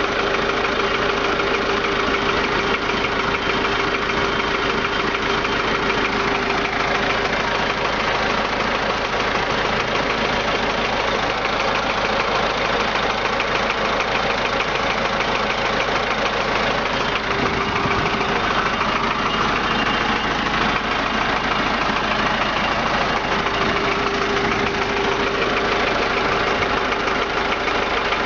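MMZ D-245 four-cylinder diesel engine idling steadily, with a foreign knock from around the fourth cylinder heard through the normal diesel clatter.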